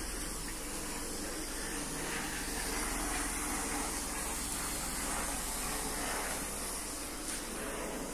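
Steady hissing background noise with no distinct events.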